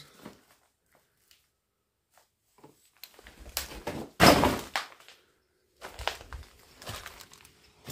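Scattered knocks and scuffs, with one loud, sharp thump about four seconds in.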